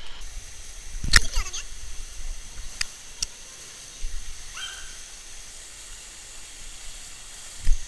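Canyon stream water rushing through the gorge as a steady hiss. Over it come a few sharp knocks and thumps, the loudest about a second in and just before the end, and a short high tone about four and a half seconds in.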